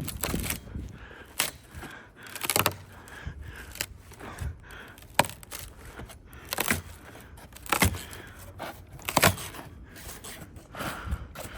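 An ice-glazed fence being pushed again and again, each push giving a sharp crack or snap with crackling, about one every second or so.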